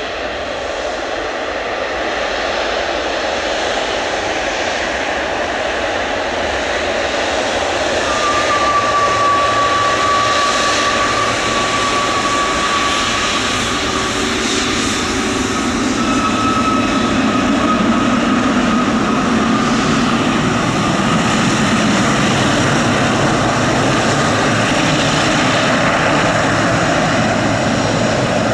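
Boeing 777-300 jet engines: a loud, steady rush that builds over the first several seconds and then holds, with a high whine that drifts slightly lower.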